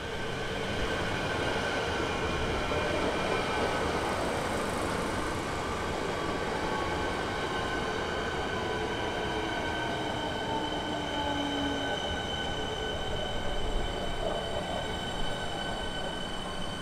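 Siemens Nexas electric multiple unit slowing into the platform and stopping: a rumble of wheels on track under a whine of several tones that fall slowly in pitch as it brakes.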